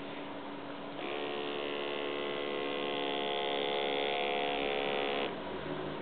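A small electric motor whirring steadily. It starts about a second in, runs for about four seconds and cuts off abruptly.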